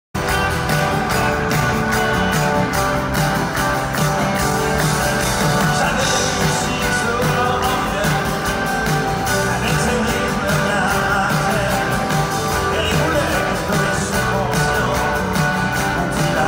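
Live concert music heard from within the arena crowd: a male singer with acoustic guitar backed by a full band.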